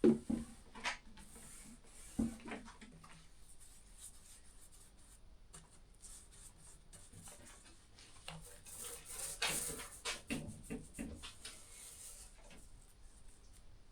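Paintbrush strokes on wood, with a few light knocks in the first couple of seconds and a run of scratchy brushing strokes about two thirds of the way through.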